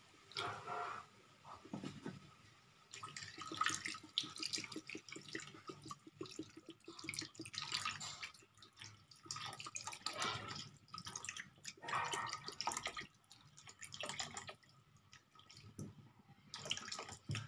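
Water poured from a plastic jug into a wok of chicken pieces, splashing and trickling in uneven surges as the pan fills.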